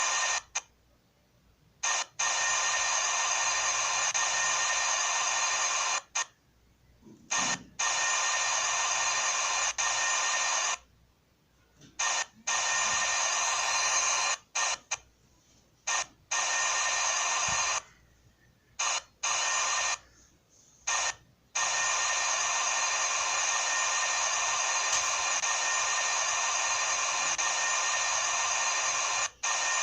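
CNC machine running with a steady high buzzing whine that cuts off abruptly and restarts several times, with silent pauses of about a second between runs.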